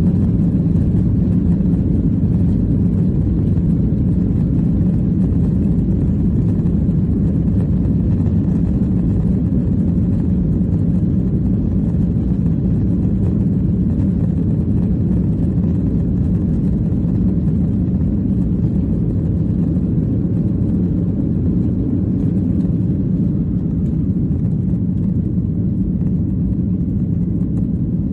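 Boeing 737-800 cabin noise at takeoff: its CFM56-7B turbofans run at takeoff thrust, a loud, steady low rumble, heard from a rear window seat during the takeoff roll and liftoff. The rumble eases a little near the end.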